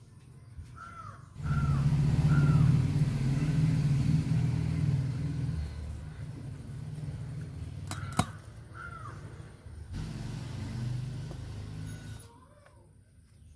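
Crows cawing a few times, over a loud low rumble that starts abruptly and cuts off near the end, with a sharp click about eight seconds in.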